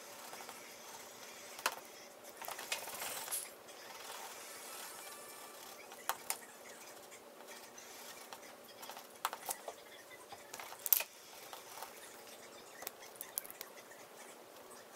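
Drawing on paper: a short scratchy stroke a couple of seconds in, with scattered light clicks and taps throughout, the sharpest about eleven seconds in.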